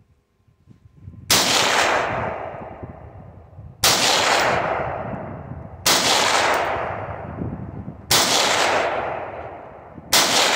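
Retro Armalite rifle fired five times in slow aimed fire, a shot about every two seconds, each crack trailing off in a long fading echo.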